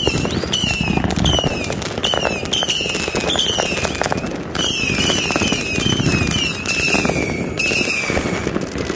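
Firework barrage firing whistling shots in quick succession: a short, high whistle that falls in pitch, about two a second, each with a sharp crack, over steady crackling and popping.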